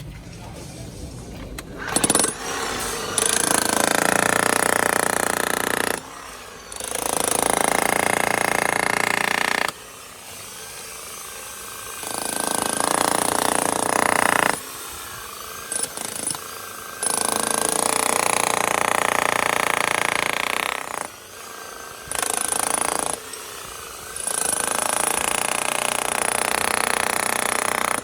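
Makita HM1213C SDS-Max electric demolition hammer running, starting and stopping in repeated loud bursts of a few seconds each, with short pauses between.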